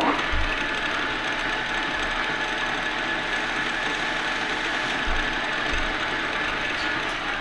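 Victor metal lathe running at a steady speed with a steady whine, spinning a sintered bronze bushing in a collet chuck while a chamfering tool cuts its edge. It starts at once and shuts off near the end.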